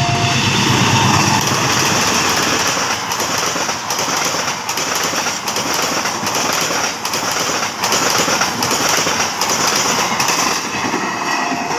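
Double-headed diesel-electric locomotives and a passenger train passing at speed. A horn blast ends just after the start and the engines rumble loudly as the locomotives go by. Then comes the steady roar of the coaches with a rhythmic clickety-clack of wheels over rail joints.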